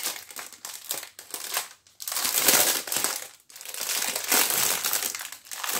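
Clear plastic wrapping on a packet of diamond painting drill bags crinkling as hands handle and pull at it, in irregular bursts broken by two short pauses.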